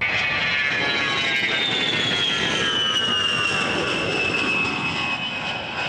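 Jet aircraft flying past: a steady jet rumble with a high engine whine that slides slowly down in pitch as it goes by, easing off a little near the end.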